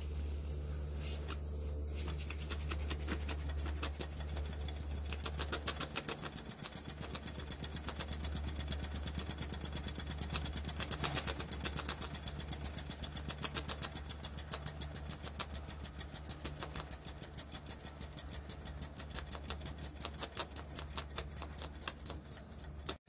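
Small model lamppost steam engine running on steam from a small test boiler, its exhaust beating in a fast, even rhythm that settles in about two seconds in. A steady low hum sits underneath.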